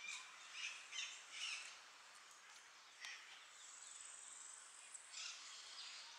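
Quiet outdoor ambience with faint high chirps, several in the first two seconds and again about three and five seconds in, and a thin high whine in the middle.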